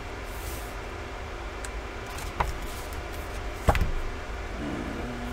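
Softcover painting book being closed and laid down on a desk: two short knocks, the second louder, about two and a half and three and a half seconds in, over a steady low room hum.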